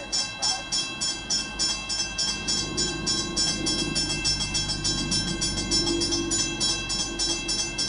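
Railroad grade-crossing signal bell ringing steadily at about two and a half strokes a second, each stroke leaving a sustained ring: the crossing has activated for an oncoming train. A low rumble runs underneath.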